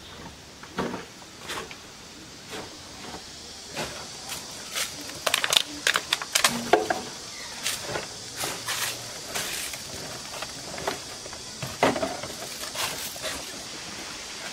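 A woven plastic sack rustling, with scattered crinkles and clicks as scrap is gathered into it, a cluster of them about five to seven seconds in, over a steady high hiss.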